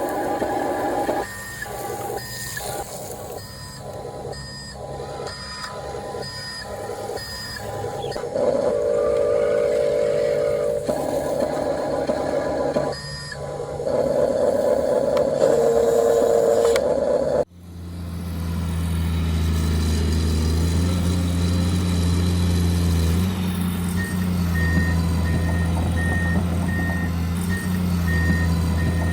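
Radio-controlled toy construction vehicles running. First come pulsing, then steady mid-pitched motor and sound-effect tones. After a sudden cut, a steady low engine hum plays with a reversing beep repeating evenly near the end.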